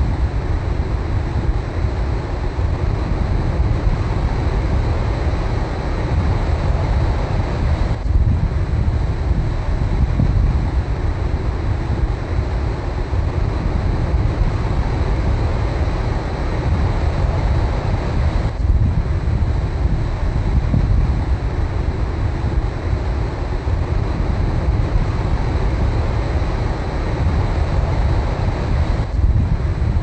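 Ocean surf washing in on a beach, heard as a steady low rush under wind buffeting the microphone.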